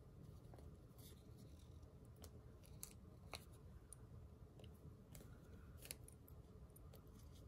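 Near silence with faint, irregular clicks and rustles from sticker sheets and paper being handled.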